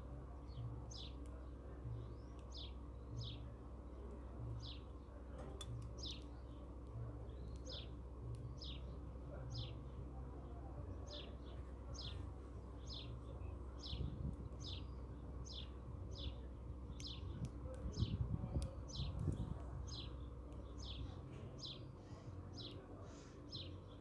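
European goldfinch chirping: short high chirps repeated about once or twice a second, over a steady low hum, with a few low bumps past the middle.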